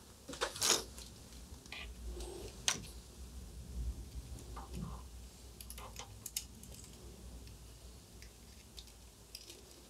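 Scattered small clicks, ticks and rustles of hands, pliers, dial cord and solder wire being worked on a valve radio chassis while the new dial cord is pulled through with the solder wire as a guide. The sharpest clicks come in the first three seconds.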